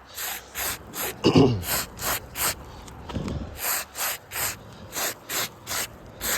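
A hand wiping back and forth across asphalt roof shingles, a rhythmic brushing scrape about two to three strokes a second that rubs loose granules off the shingle surface. A short, louder, lower sound comes about a second in.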